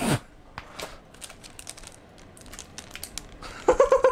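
Plastic candy wrapper crinkling and rustling as it is handled and worked open, heard as a run of small crackles. A short loud sound comes at the very start, and a brief voice sound near the end.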